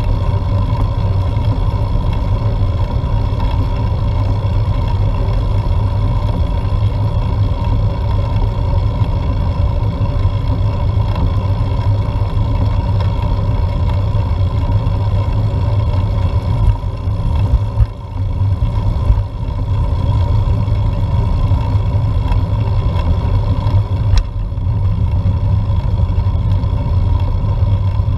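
Steady loud rumble of wind and road vibration picked up by a GoPro Hero4 mounted on a road bike climbing a hill, with a faint steady hum over it. It dips briefly about two-thirds of the way through.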